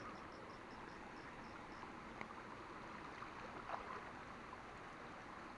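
Faint steady outdoor background hiss, with a faint, high, rapid ticking of about five a second in the first two seconds and a single soft click a little after two seconds.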